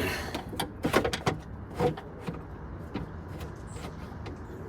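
A series of sharp clicks and knocks, with a short scraping burst at the start, as parts are handled and fitted into a car door during reassembly.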